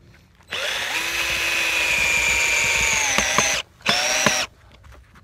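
Black and Decker 20-volt cordless drill driving a screw into a septic tank riser lid: one run of about three seconds, a brief stop, then a short second burst.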